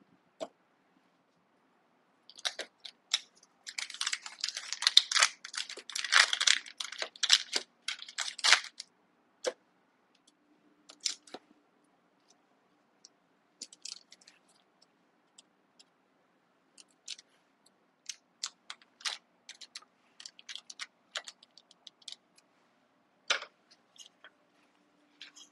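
Butter's paper wrapper crinkling as a stick of butter is unwrapped, then a kitchen knife cutting the cold butter into cubes on a wooden cutting board, making scattered sharp taps and clicks.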